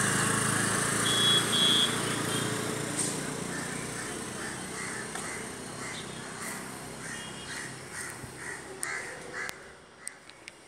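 Street traffic noise from a passing vehicle fading away over several seconds, with two short high-pitched beeps about a second in. Under it, a crow caws repeatedly, about two calls a second, until near the end.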